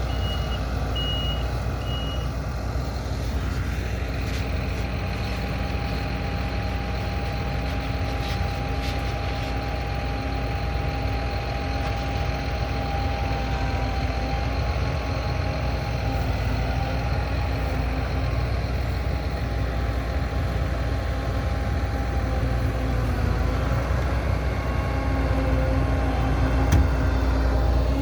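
Heavy farm vehicle engine running steadily, with a thin whine over it. A reversing alarm beeps in short pulses for the first two seconds or so, then stops.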